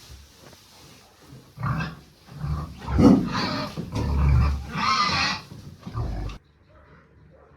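Farm animal calling: a run of loud, rough calls over about five seconds that cuts off abruptly near the end.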